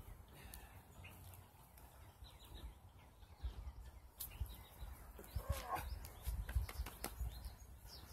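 Low rumbling handling and movement noise with scattered clicks, and one short animal call that falls in pitch about five and a half seconds in.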